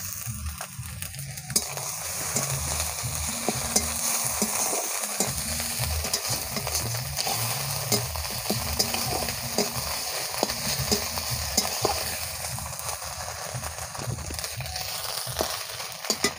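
Onion, garlic and ginger paste frying in oil in a metal kadai, sizzling steadily while a metal spatula stirs and scrapes it. Sharp clicks of the spatula against the pan come now and then.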